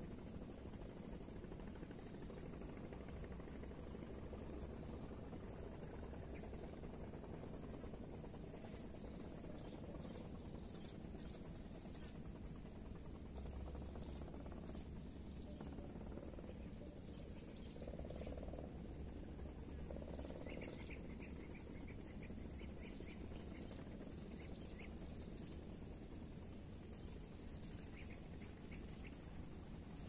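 Crickets trilling steadily in one continuous high-pitched note over faint background noise, with a short row of faint chirps about two-thirds of the way through.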